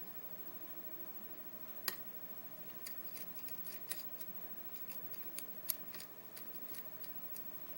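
Small metallic clicks and ticks of a hook pick working the pins of a challenge lock under tension, with one sharper click about two seconds in and a scatter of lighter ticks after it.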